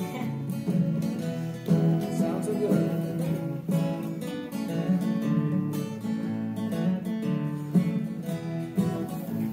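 Acoustic guitar music, strummed and picked, with no singing.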